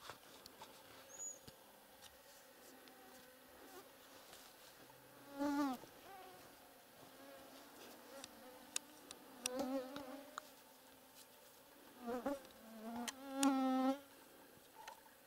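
A fly buzzing close by in four short passes, its pitch bending as it flies past. The last pass is the longest and loudest, near the end. Faint small clicks sound in between.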